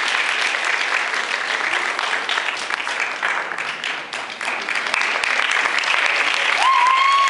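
Audience applauding: a steady wash of many hands clapping. Near the end a long held note comes in over the clapping.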